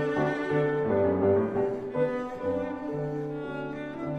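Background music: slow, sustained bowed string notes, cello and double bass, with piano.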